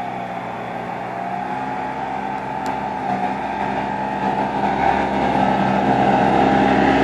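Compact tractor's engine running steadily as it pulls a rear rotary tiller through the soil, growing louder as the tractor draws near.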